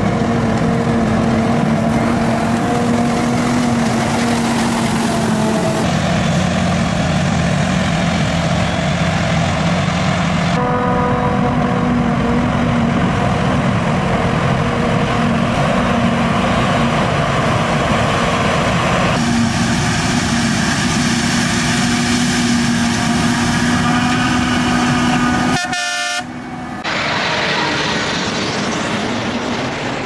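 Forage harvester and tractor diesel engines running steadily under load while chopping and hauling maize for silage, a continuous heavy hum. The tone changes abruptly several times, with a brief dropout near the end.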